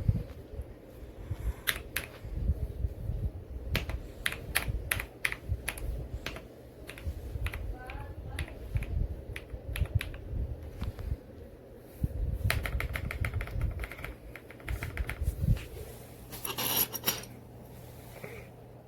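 Typing on a Kisnt 85-key gasket-mounted mechanical keyboard with linear switches: irregular keystrokes, with a fast run of presses about two-thirds of the way through and a dense cluster near the end.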